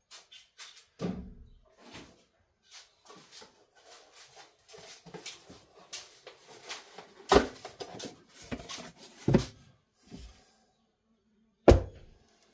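Handling noises as a person moves about a workshop and fetches and handles a piece of cardboard: scattered rustling with several sharp knocks and thumps. The loudest come about seven and a half seconds in, at about nine and a half seconds, and a last sharp knock near the end.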